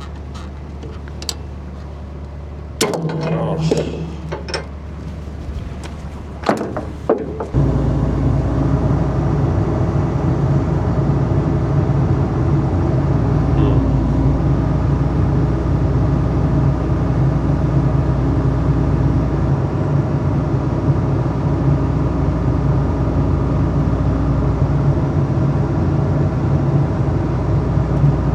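An engine running steadily. The first few seconds carry a few knocks and clunks, then about seven seconds in the engine sound becomes suddenly louder and holds steady.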